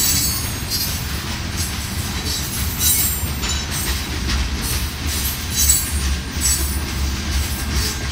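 Empty covered hopper cars of a freight train rolling slowly past on a curve: a steady low rumble of wheels on rail, with short high-pitched wheel squeals coming and going several times.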